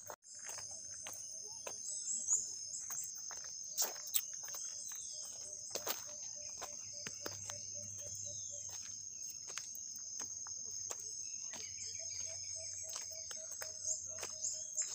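Steady high-pitched insect chorus filling the forest, with irregular soft clicks and scuffs of footsteps on a stony dirt trail.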